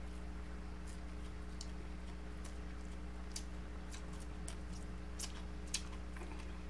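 Chewing of deep-fried tilapia close to the microphone: scattered small, sharp mouth clicks and crunches, irregularly spaced, over a steady low electrical hum.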